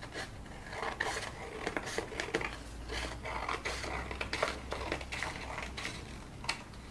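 Card and a plastic ruler being handled on a work surface: irregular light taps, clicks and scrapes.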